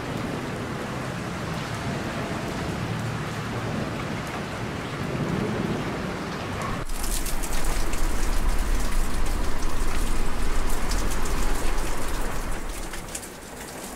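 Steady rain falling. About seven seconds in it switches abruptly to heavier, crackling rain over a deep low rumble, which fades away near the end.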